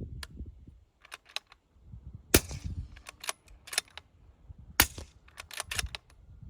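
Two suppressed rifle shots from a 300 Blackout bolt-action rifle fitted with a home-built 6-inch, 1.75-inch-diameter suppressor, about two and a half seconds apart, the first the louder. Smaller metallic clicks come before, between and after the shots: the bolt being worked.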